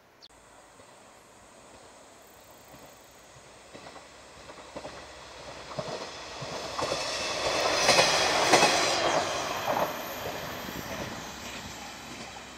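A train passing. Its sound grows from faint, with a run of wheel clicks over the rail joints, and is loudest about eight seconds in, where a high whine joins it. It then fades away.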